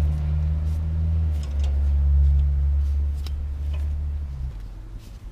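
A steady low hum that cuts off about four and a half seconds in, with scattered light metal clicks and taps of a tool working at the brake caliper to push the piston back.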